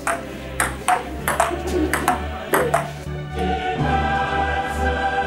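Background music with a pulsing bass and sharp ping accents about every half second, turning into held, choir-like chords about three and a half seconds in.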